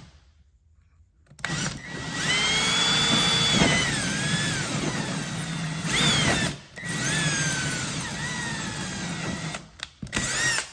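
Power drill with a step bit boring a hole through a thin, soft RV baggage door, run in bursts. It starts about a second and a half in and stops briefly midway. It runs again, then gives a short final burst, its whine dipping in pitch now and then.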